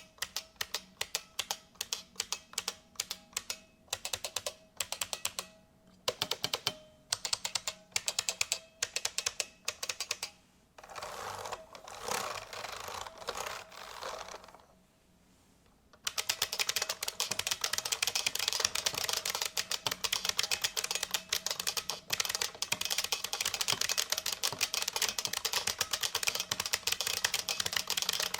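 Typing on an IBM Model F XT keyboard, its capacitive buckling spring switches clicking with each keystroke. Separate, evenly paced keystrokes give way to a dense flurry, a brief pause, and then fast continuous typing.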